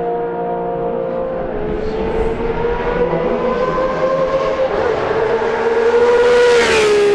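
Historic Formula 1 racing car engines running at high revs on track, their pitch slowly climbing; near the end one car passes close by, getting louder, and its note drops as it goes past.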